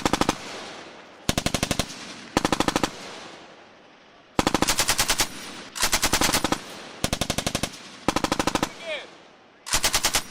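Belt-fed machine gun firing about eight short bursts of rapid automatic fire, each under a second or so, separated by brief pauses.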